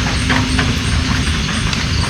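Steady heavy rain, a dense hiss over a low rumble, with many small irregular drops and drips ticking through it.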